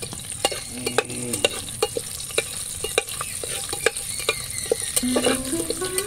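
Whole spices sizzling in hot oil in a pressure cooker, stirred with a metal spoon. The spoon gives many sharp clicks and scrapes against the pot.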